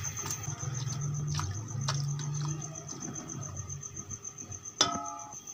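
Silicone spatula stirring minced beef, vegetables and water in a metal pressure cooker pot: soft wet scraping and light clicks against the pot. A sharp ringing clink comes near the end. A steady high pulsed chirping runs in the background.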